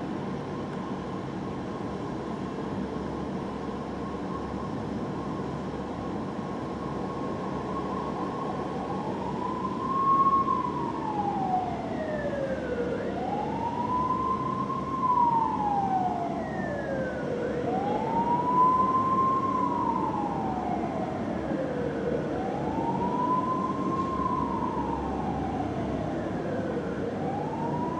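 Fire engine siren, held at one steady pitch for several seconds, then going into a slow wail that rises and falls about every four and a half seconds, over a low steady rumble.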